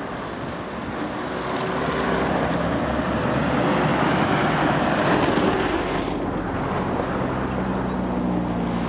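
Road traffic: a passing vehicle's engine and tyre noise swells over a few seconds and falls away about six seconds in, while a low engine hum carries on under a steady rush of noise.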